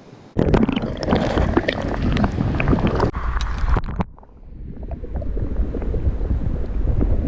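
Water splashing and gurgling close to the microphone, with many small clicks and splashes. It starts suddenly, breaks off about four seconds in, then builds back up.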